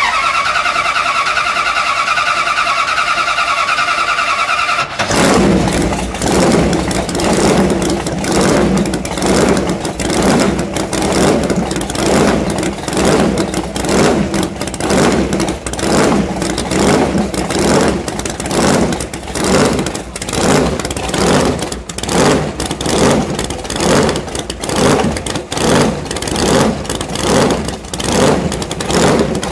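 Rear-mounted supercharged 426 Hemi in a 1969 Plymouth Barracuda drag car being started: a steady starter whir for about five seconds, then the engine catches and runs loud and rough, swelling and dropping about once a second as the throttle is blipped.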